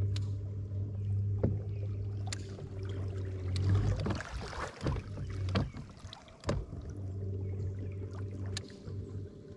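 Bow-mounted electric trolling motor running with a steady low hum, over which come scattered sharp clicks and knocks of the boat and gear, with a brief rush of noise about four to five seconds in.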